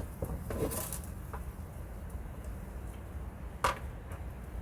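Snow pusher assembly hardware being handled: a short rustle and a few sharp metallic clicks, the loudest clink about three and a half seconds in.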